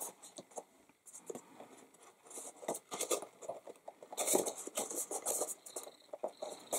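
Cardstock band being worked and slid onto a paper box by hand: paper rubbing and scraping, with small taps and rustles, loudest around the middle. The band is a tight, fiddly fit, glued a little too snug.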